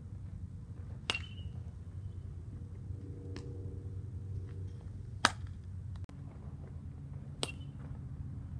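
Infield ground-ball practice. A baseball is struck off a metal bat with a short ringing ping about a second in, and again near the end. Between them comes the loudest sound, a sharp crack of the throw smacking into the first baseman's glove, over a steady low background rumble.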